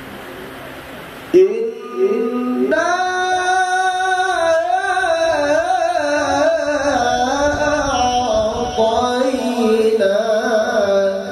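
Male qari reciting the Quran in melodic tilawah style into a microphone. The voice comes in suddenly about a second and a half in, after a low hall murmur, and then holds one long unbroken melismatic phrase with wavering ornaments.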